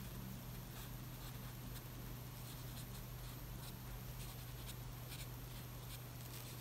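Fine round paintbrush stroking and dabbing on sketchbook paper, a faint soft scratching with light ticks, over a steady low hum.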